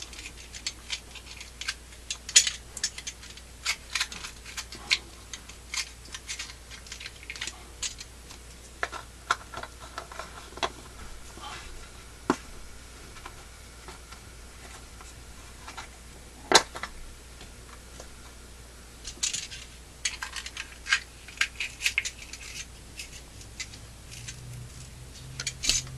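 Hands and small tools working on a firework aerial shell as it is cut open: irregular clicks, taps and scrapes against the paper casing and bench, with one sharper snap about two-thirds of the way through.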